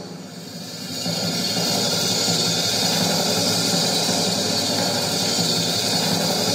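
A drum roll over the PA, building up over the first second or so and then rolling steadily while the winner is about to be announced.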